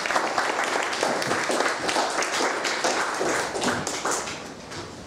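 Audience applauding: a dense run of many hand claps that dies away about four seconds in.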